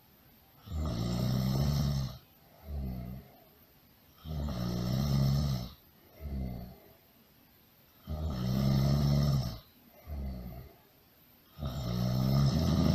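Loud, regular snoring: about every four seconds a long, pitched, rattling snore is followed by a shorter, softer one, repeating evenly throughout.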